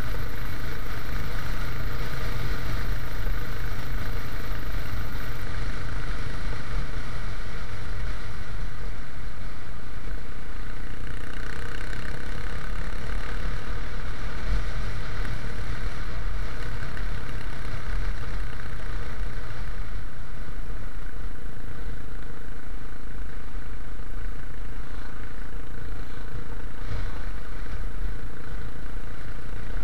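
Yamaha XT350's single-cylinder four-stroke engine running steadily as the motorcycle cruises along a road.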